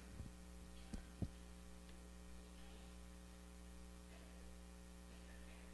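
Near silence with a steady low electrical mains hum, and two faint clicks about a second in.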